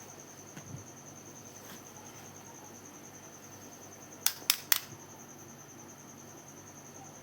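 Three sharp clicks in quick succession a little past the middle, over a steady high, evenly pulsing chirr like a cricket.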